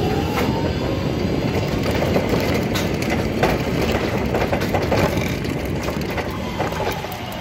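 BT battery-electric reach truck driving: a steady rumble and rattle of the truck rolling over the floor, with the electric drive motor's whine rising as it speeds up near the start and falling as it slows near the end, and scattered knocks.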